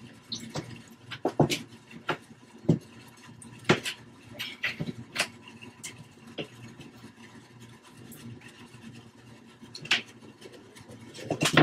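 Claw hammer striking nails into a wooden 2x4 frame: a string of separate, irregularly spaced knocks with short pauses between them.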